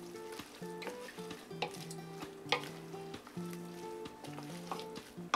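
Cornbread stuffing with apples and cranberries sizzling in a hot pan as it is stirred, with a utensil now and then clicking and scraping against the pan. Soft background music plays underneath.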